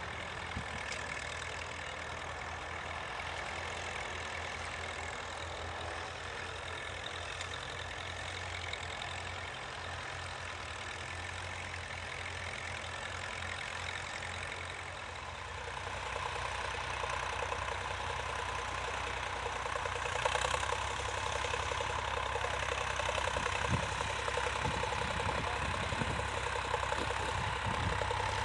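Vintage farm tractor engine running steadily, growing louder about halfway through, with a few sharp knocks near the end.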